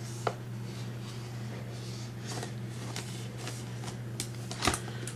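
Clear plastic blister packaging of an action figure being handled, crinkling with scattered small clicks and a few sharper clicks near the end, over a steady low hum.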